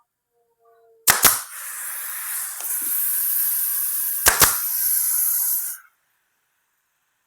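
A sharp double click about a second in, then a steady high hiss with a second sharp double click partway through; the hiss cuts off abruptly about five seconds later.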